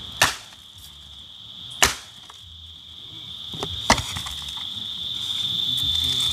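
Three sharp chopping blows, about two seconds apart, over a steady high buzz of insects that grows louder toward the end.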